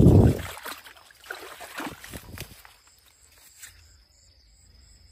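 A loud low thump as the phone brushes through cucumber leaves, followed by a few rustles; from about three seconds in, an insect trills steadily in high pitch.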